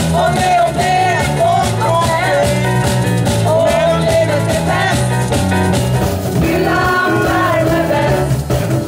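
A live band playing a song: women's voices singing together over electric guitar and drums with a steady beat.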